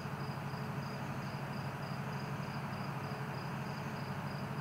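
Crickets chirping in an even pulsing rhythm, about three chirps a second, over a low steady hum.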